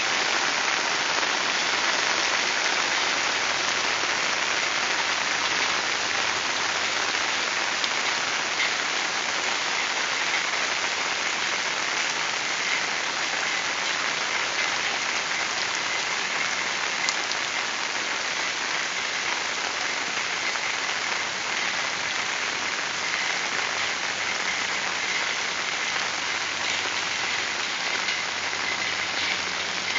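Heavy rain falling on the open surface of a lake: a steady, dense hiss of countless drops striking the water, easing slightly toward the end.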